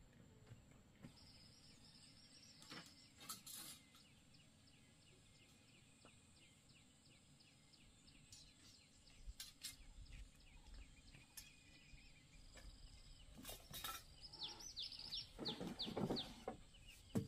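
Faint bird chirps in a quiet rural yard, with a few scattered knocks. Near the end, bamboo poles knock together as they are lifted from a pile.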